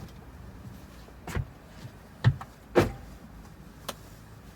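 A few short knocks and clunks, four in all, the loudest two coming close together just past the middle.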